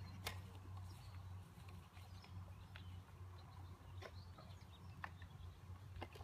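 Quiet outdoor ambience: a steady low hum with a few faint clicks and faint, distant bird chirps.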